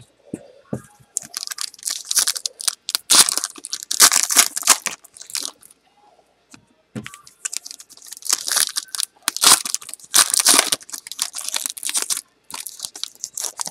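2012 Panini Prizm baseball cards being handled and flipped through by hand, with pack wrappers crinkling: irregular bursts of crisp rustling and card-on-card sliding, separated by brief pauses.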